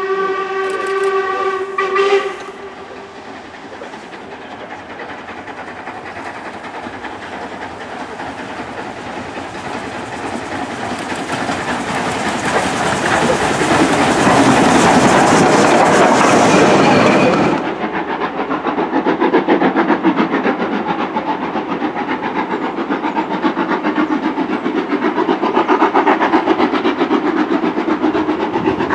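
Steam locomotive 46100, a three-cylinder Royal Scot class 4-6-0, sounds one held whistle note that ends about two seconds in. It then draws near and passes with a rising rumble and steam hiss, loudest near the middle. This cuts off suddenly about two-thirds of the way through, replaced by GWR pannier tank 7714 hauling its train with steady, rhythmic exhaust beats.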